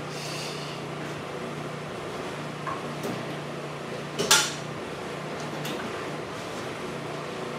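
A single sharp clank of a metal tool or part about four seconds in, with a couple of fainter ticks, over a steady low hum from a power washer running in the background.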